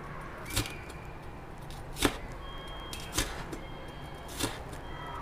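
Cleaver slicing long red sweet peppers into strips on a cutting board: four sharp knocks of the blade against the board, spaced a little over a second apart.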